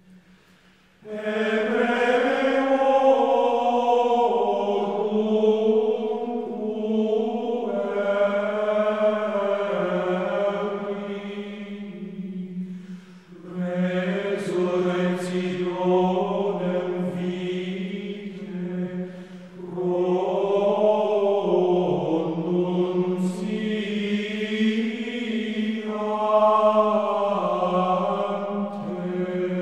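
Voices chanting a slow melody over a held low drone note, in long phrases with short breaks between them.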